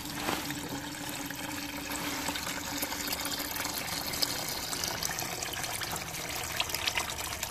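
Thin, watery engine oil from a Murray riding mower's crankcase drain pouring and splashing steadily into a plastic container. The oil is mostly gasoline, flooded into the crankcase past the carburetor.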